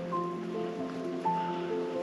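Background music of slow, held keyboard notes over a steady rushing hiss.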